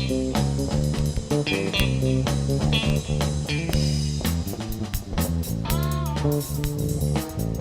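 Rock band playing live: electric guitar over bass guitar and drums, with one note bent up and back down about six seconds in.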